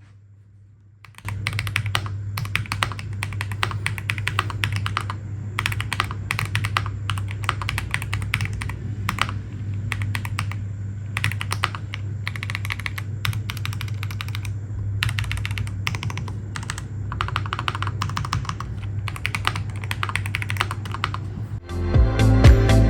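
Rapid typing on a JEDEL WKL-88 mechanical keyboard with pink switches: a dense, irregular run of keystroke clicks that starts about a second in. Loud electronic music comes in near the end.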